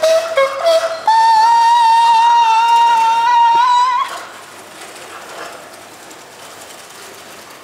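A short fanfare, sung: a few quick notes, then one long high note held for about three seconds that rises slightly at the end and cuts off suddenly. After it, only quiet room tone.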